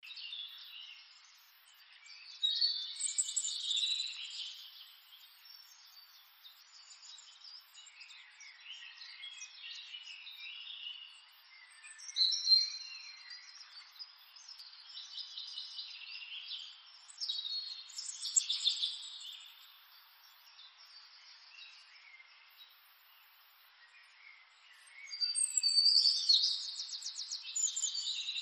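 Birds chirping and calling in irregular spells, with a quick run of repeated notes near the end. The sound is thin, with no low end.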